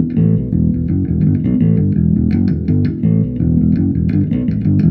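Intro theme music led by bass and guitar, plucked notes in a quick, even rhythm with sharp percussive clicks, landing on a sustained chord at the very end.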